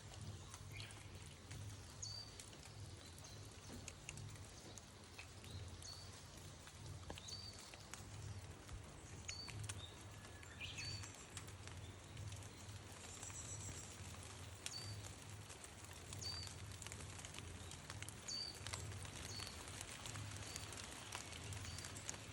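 Wild birds calling, among them a Japanese bush warbler (uguisu). A short high chirp repeats every second or two, a longer song phrase comes about ten seconds in, and a brief twittering follows, all faint over a steady low rumble.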